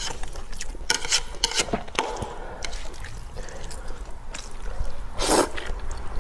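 Close-miked eating of noodle soup: wet slurping and mouth noises with small clicks, and a louder slurp about five seconds in.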